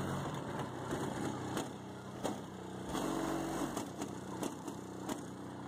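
Bass-heavy music played very loud through a pair of Boston SPG555-4 subwoofers in a car, with deep bass notes that change every second or two and sharp beat hits.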